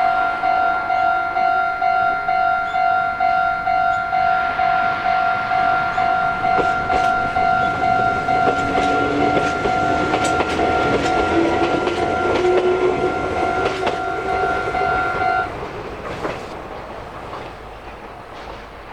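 Japanese railway level-crossing warning bell ringing its repeated 'kan-kan' ding, cutting off suddenly about three-quarters of the way through. Meanwhile a Meitetsu electric train passes, its wheels clicking over rail joints and its motor whine rising in pitch.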